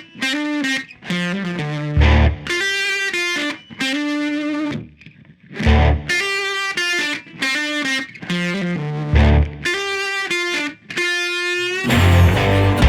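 Background music: distorted electric guitar playing short, chopped notes, with a deep bass hit about every three and a half seconds.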